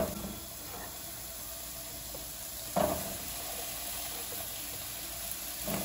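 Chunks of zucchini dropped by hand into a metal cooking pot, each handful landing with a short clunk: one at the start, one nearly three seconds in and one near the end, over a steady low hiss.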